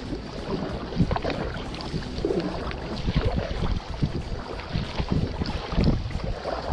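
Kayak paddle strokes in calm sea water, with irregular splashes and water washing along the plastic hull of a sit-on-top kayak, and wind buffeting the microphone.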